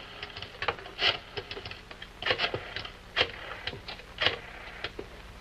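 A string of uneven sharp clicks and light knocks, about one or two a second, as small objects are handled.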